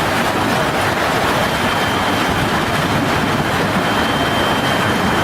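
Steady, dense noise of a severe storm: strong wind and heavy rain or hail pelting down, unbroken throughout, with a faint thin high tone.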